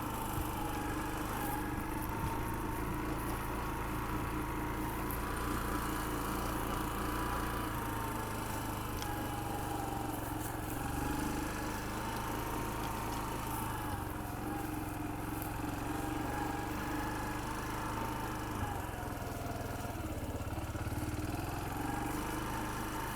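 A motor running steadily: a constant low drone with a higher whine that wavers slightly in pitch.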